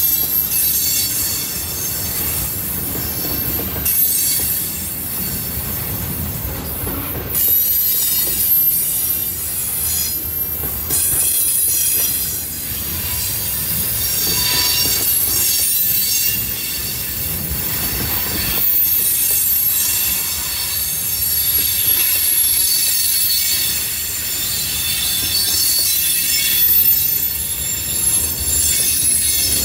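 Freight train cars rolling past, their steel wheels squealing against the rails: several high-pitched squeals that come and go over a steady rumble of wheels on track.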